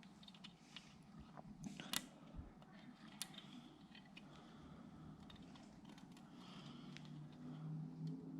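Faint small clicks and light handling noise of a piston ring being fitted into an engine cylinder bore, with a low steady hum underneath.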